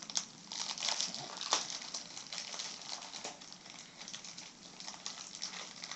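Hands working at stiff plastic toy packaging that won't open: scattered rustling and crinkling with small plastic clicks and taps.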